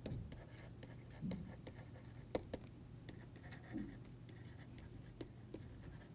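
Faint taps and scratches of a stylus writing on a pen tablet, in scattered short ticks.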